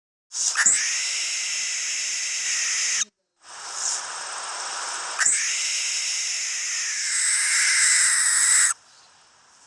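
Barn owl screeching: two long, harsh, breathy screams with no clear pitch, the first about three seconds long and the second about five.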